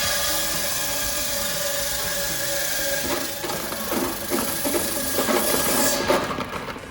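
Five-blade ice-cutting machine with a 3 HP motor running, with a loud, steady hiss. Irregular clattering joins in from about three seconds in, and the sound drops off near the end.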